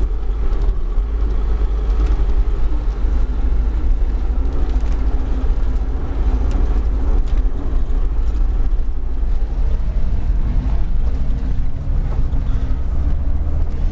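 Minibus engine running and its tyres on a rough dirt road, heard from inside the cabin: a steady low rumble with occasional short knocks.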